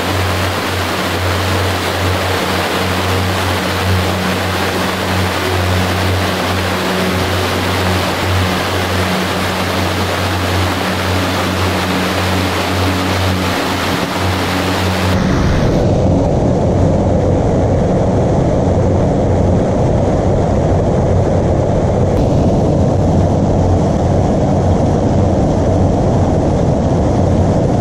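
Rushing water of the Sydenham River's rapids and cascades at Inglis Falls, a steady loud rush over a low rumble. About halfway through it cuts to a duller, deeper rush with less hiss.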